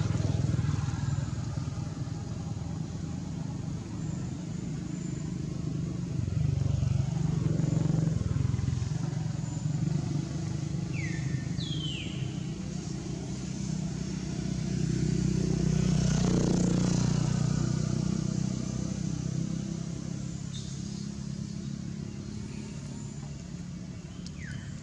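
Low rumble of motor vehicles, likely motorbikes, passing by. It swells and fades three times. A few short, high, falling chirps come through in the second half.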